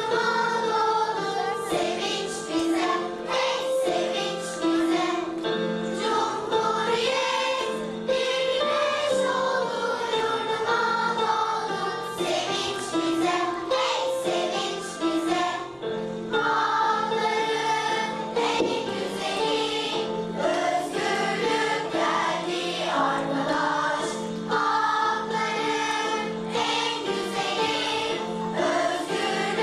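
School choir singing a song together, with sustained notes held and moving through a melody.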